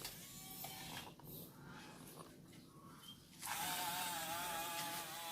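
Small clicks and handling noises, then about three and a half seconds in the small electric motor of a remote-control toy excavator starts with a sudden steady buzzing whine.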